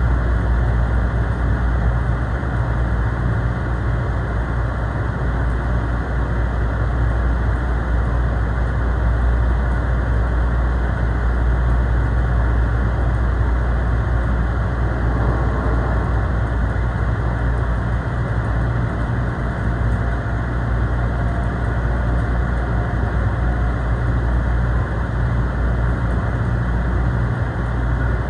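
Commuter train running, heard from inside the passenger car: a steady low rumble of wheels on track.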